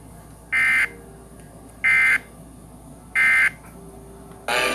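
Three short Emergency Alert System SAME data bursts, the warbling digital End-of-Message code that closes the alert, each about a third of a second long and spaced a little over a second apart. Near the end a longer, fuller electronic tone begins.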